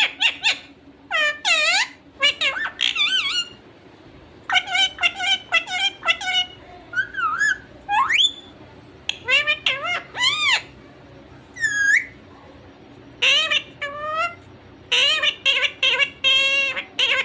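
Pet parrot squawking and chattering in quick clusters of short, high calls, with brief pauses between the groups.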